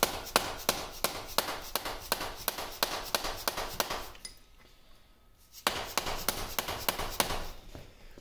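Rapid light hammer taps on a steel punch, about four a second, driving a handle shaft out of the cast-iron apron of a 1950 LeBlond Regal lathe. The shaft is coming out easily. The tapping stops for about a second and a half midway, then resumes.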